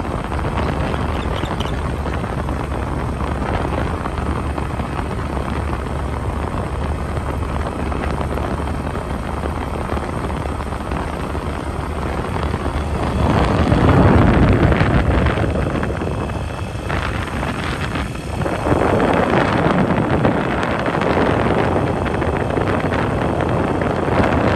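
Steady road and wind noise from a moving vehicle, with louder, rougher gusts of wind on the microphone about 13 seconds in and again from about 19 seconds on.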